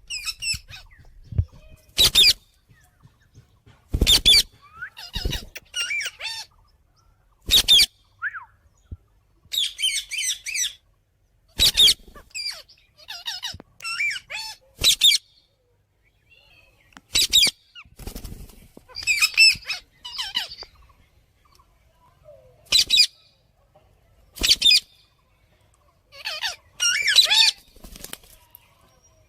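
Parrot calling: loud, short, shrill squawks every two to three seconds, with softer warbling chirps and chatter between them.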